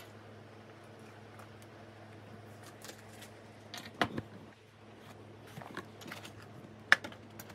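Handling noise from a microphone and metal spring-loaded boom arm being picked over on a table: light paper rustling, then scattered clicks and knocks, a cluster of louder knocks about four seconds in and one sharp click near the end, over a steady low hum.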